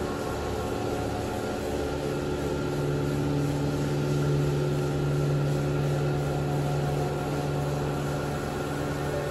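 Pressure washer running steadily with a motor hum, its jet hissing onto a soaked carpet. The hum strengthens about two seconds in.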